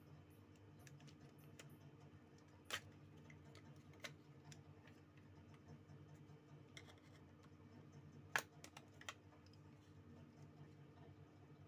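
Near silence broken by a few sharp, light clicks of small tools and plastic parts being handled during a mobile phone teardown, the loudest about two-thirds of the way in, over a faint steady hum.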